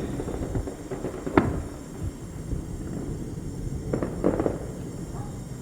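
Fireworks going off in the distance: one sharp bang about a second and a half in, then two more pops close together near the four-second mark, over a steady low background rumble.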